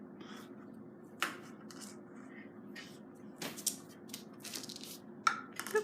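Small plastic toys and Play-Doh pots handled and set down on a table: irregular clicks and taps, coming more often in the second half, over a steady low hum.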